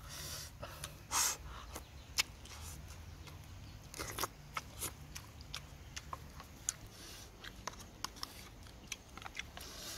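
A person eating fish stew: irregular chewing and smacking clicks, with a louder burst about a second in.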